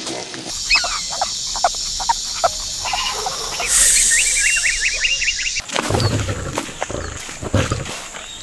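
Animal sounds: a string of short cries, then a hissing stretch with quick chirps a little past halfway, then low thuds near the end.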